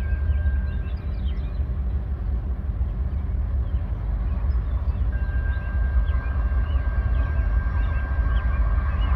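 GE C44-9W diesel-electric locomotive, with its 16-cylinder GE diesel, rumbling as it leads a freight train toward the listener, the noise building over the last few seconds as it nears. A thin steady high squeal drops out about a second in and returns about five seconds in, and birds chirp briefly throughout.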